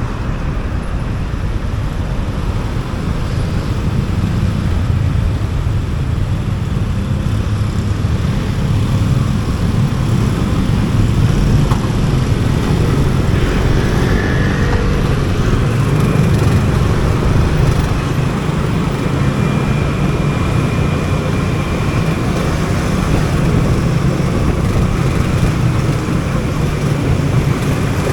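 Motorcycle riding through city traffic: its engine running, with a steady low rumble of engine and road noise.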